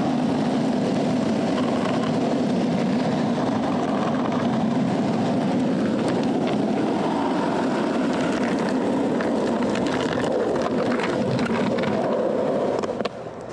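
Skateboard wheels rolling over pavement: a steady rumble with a few faint clicks, which drops away just before the end.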